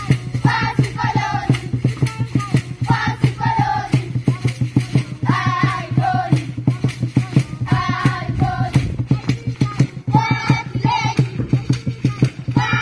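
A group of young voices sings short chanted phrases in chorus, repeating about every two to three seconds, over a steady, fast percussive beat.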